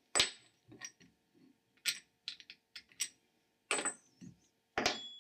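Metal clinks and knocks as the Kärcher pressure washer's metal pump head is worked loose and lifted off its motor housing. About six sharp clicks with short pauses between them, the loudest just after the start and near the end.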